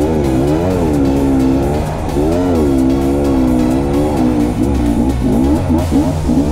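Dirt bike engine revving up and down as the rider works the throttle, with quick short rises near the end.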